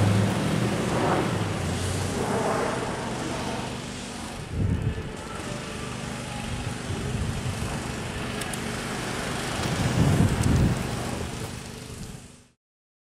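Toyota Tundra pickup truck driving off down the street, its engine tone fading as it pulls away, over a steady rush of wind and road noise with two louder gusts on the microphone. The sound cuts off near the end.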